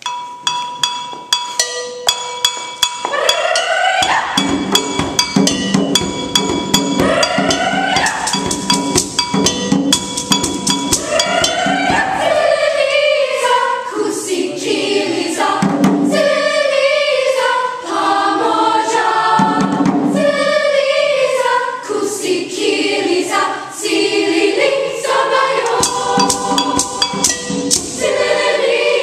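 Youth choir singing in parts, accompanied by steady hand percussion. The percussion plays alone at first; voices come in about three seconds in with rising swoops, and the lower parts join soon after.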